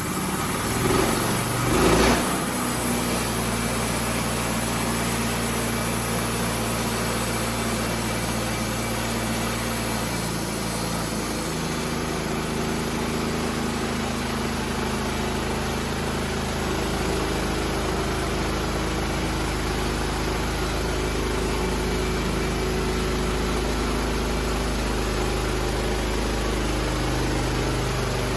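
Wood-Mizer LT15 portable sawmill's engine running steadily, with its note changing about a third of the way through. A couple of knocks come in the first two seconds.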